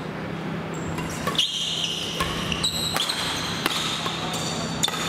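Badminton rally: rackets striking the shuttlecock in a series of sharp cracks from about a second in, mixed with short squeaks of shoes on the gym floor. A steady low hum runs underneath.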